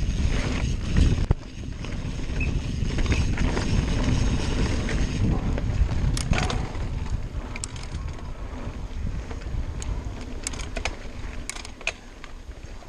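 Mountain bike rolling down a dirt and rock trail, with wind buffeting the microphone and the bike rattling over the ground. Sharp clicks and knocks come now and then in the second half.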